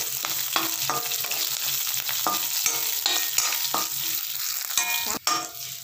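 Oil sizzling in a metal kadai as garlic, green chillies and curry leaves fry with mustard seeds and dal, with a metal spoon scraping and clicking against the pan as it stirs.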